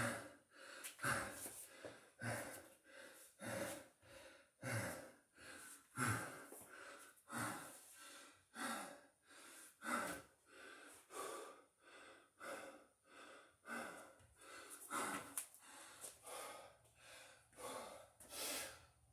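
A man's heavy, rhythmic breathing, about one loud breath a little more than every second: he is out of breath and recovering mid-set of burpees.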